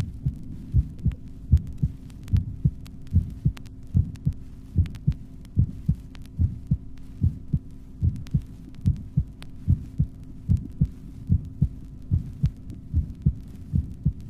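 Normal human heart sounds recorded at the apex of the heart: the first and second heart sounds as regular pairs of low thuds (lub-dub), clearly audible, with no murmur between them. A faint steady hum runs underneath.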